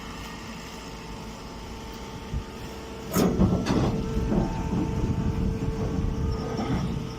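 Straw baler machine running with a steady hum; about three seconds in, louder mechanical clattering with knocks starts up and carries on.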